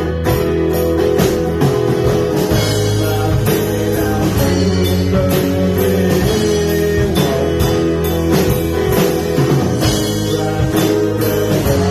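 Rock band playing live: electric guitars, bass and drum kit, with steady drum hits throughout.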